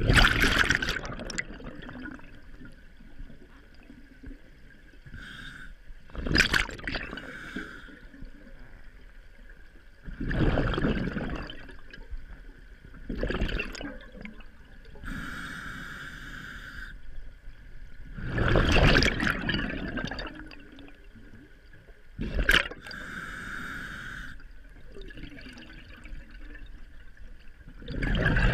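Scuba diver breathing through a regulator underwater: exhaled bubbles gurgle out in loud bursts every few seconds, with the hiss of an inhalation through the regulator in between.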